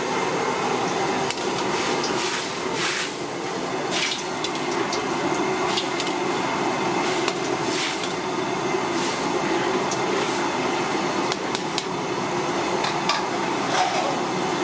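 Water boiling hard in a steel wok over a gas burner, a steady bubbling rush, with a few short metal clinks from the perforated ladle stirring the diced carrot and corn.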